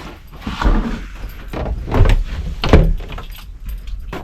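Handling and thuds at a vehicle door, with keys jangling, as the door is worked at to get it open. There are three heavier thuds, about half a second, two seconds and nearly three seconds in.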